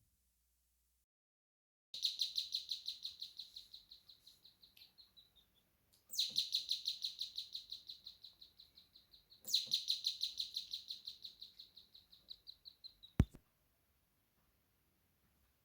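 Electronic bird-chirp doorbell built from two NE555 timer ICs, chirping: three bursts of rapid high chirps, about five a second, each starting loud and fading away over three to four seconds. A sharp click sounds near the end.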